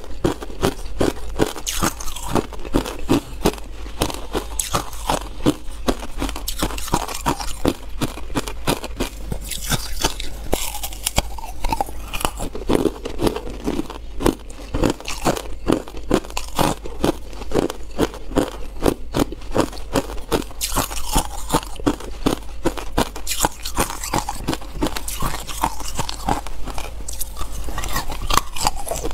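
A person biting into and chewing hard, clear ice, a dense run of sharp, crackling crunches with no break.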